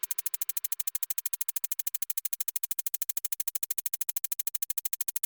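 Electronic background music reduced to a fast, even synth pulse, about ten pulses a second and brightest in the treble.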